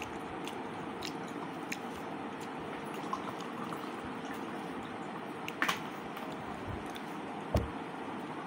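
A person eating rice by hand: small clicks and mouth sounds of chewing over a steady background hiss, with two sharper knocks, one about halfway through and one near the end.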